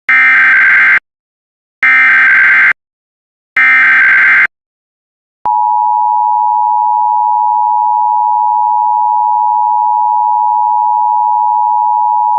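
Emergency Alert System signal: three one-second bursts of shrill SAME header data, then, about five seconds in, the steady two-note attention tone starts and holds, announcing an emergency alert message.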